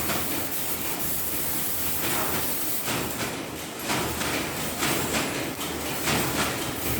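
Fiber laser cutting machine working sheet metal: a steady hiss with short, irregularly spaced louder bursts of hissing noise.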